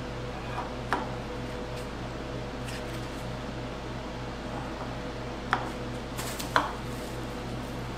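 A few light metallic clicks from a timing chain and its steel sprockets being slid by hand onto the cam and crank of a small-block Ford V8, the sharpest near the end, over a steady low hum.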